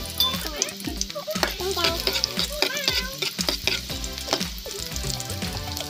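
Chopped garlic sizzling as it fries in oil in a wok, with a spatula stirring and scraping against the pan in short repeated strokes.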